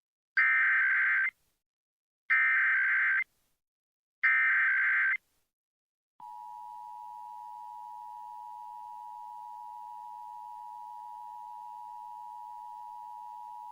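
Emergency Alert System header: three short, loud bursts of SAME digital data, each about a second long and about a second apart. About six seconds in, the steady, quieter two-tone EAS attention signal starts; it opens a test of the Emergency Alert System.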